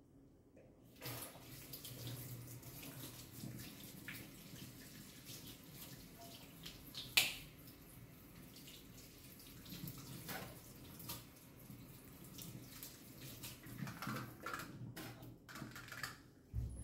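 Kitchen tap running into a sink, starting about a second in, with scattered knocks and clatters as things are handled under the water and one sharper clack about seven seconds in. The running stops near the end.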